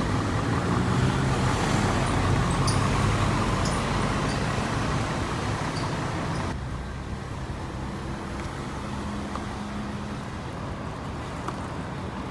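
Road traffic passing on a city street: cars and motorcycles driving by, a steady hum of engines and tyres. It is louder for the first half and drops off suddenly about six and a half seconds in.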